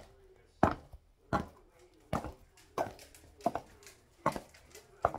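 Stiletto heels of patent pumps clicking on a hard floor in a steady walk, about seven sharp clicks, one every 0.7 seconds or so.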